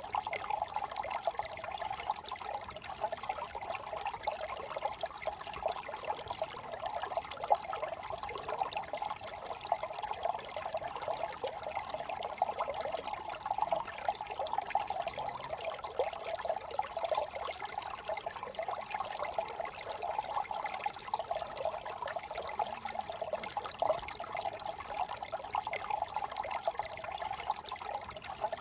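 Water of a small brook trickling steadily, a busy flickering sound without pauses or single events, with a faint high hiss above it.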